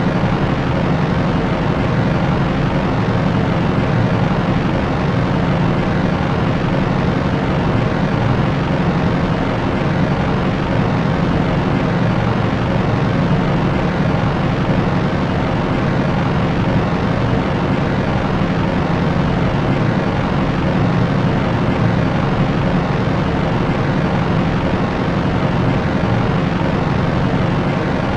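Propeller aircraft droning steadily: an even, unchanging hum strongest low down with a dense hiss above it.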